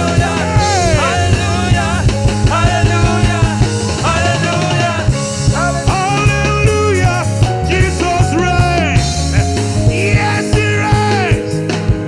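Gospel praise-and-worship music: a full band with a steady drum beat and bass under sung melody lines.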